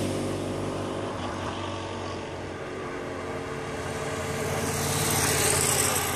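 A steady engine hum fades over the first second or so. Then a race escort motorcycle approaches along the road ahead of the cyclists, and its engine and tyre noise grow louder toward the end.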